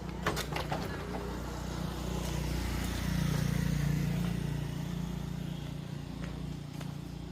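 A motor vehicle's engine running and passing by, growing louder about three seconds in and then fading, with a few light clicks near the start.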